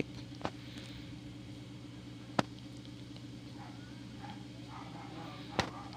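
A few sharp metal clicks, the loudest about two and a half seconds in, as the camshaft holder and rocker arms are fitted by hand onto a motorcycle cylinder head, over a steady low hum.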